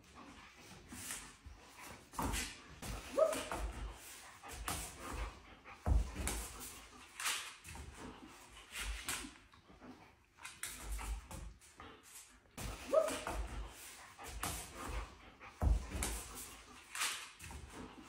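German Shepherd dog fussing excitedly, with a short rising whimper twice, breathy snuffles, and irregular thumps and taps of paws and body.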